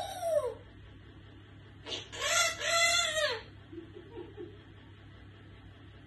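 African grey parrot calling: a short call at the very start, then a louder, drawn-out call about two seconds in, lasting about a second and a half and rising then falling in pitch, followed by a few faint chirps.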